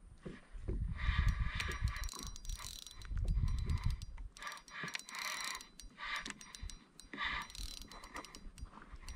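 Spinning reel being cranked to retrieve line, its gears whirring in several short spells of about a second each with brief pauses between, and a low rumble under the first few seconds.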